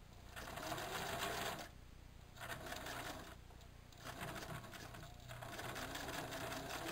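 Domestic sewing machine stitching a seam through terry towelling, running in about four short runs of rapid needle strokes with brief stops between them.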